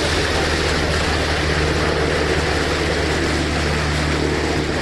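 An engine running steadily, a constant low drone with a steady hum under it.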